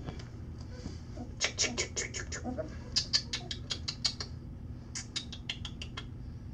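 Very young golden retriever puppies squeaking in three quick runs of short, high chirps as they tussle, starting about a second and a half in, about three seconds in, and about five seconds in.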